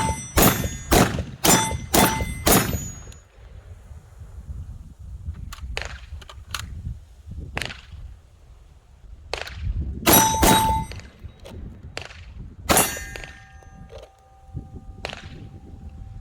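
Pistol shots hitting steel targets: a quick string of about six shots, then slower, irregular shots, with many hits leaving the steel plates ringing and one ring lasting a few seconds near the end.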